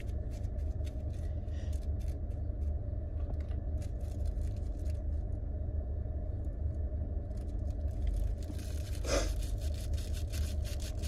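Steady low rumble of a running car heard inside the cabin, with light crackles and rustles of a rolling paper being handled and twisted while a joint is rolled.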